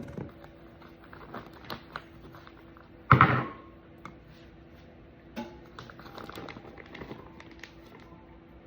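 Fresh blueberries poured through a funnel into a plastic vacuum-seal bag: a short loud rush of berries at the start and again about three seconds in, with scattered light taps and clicks of single berries dropping in between.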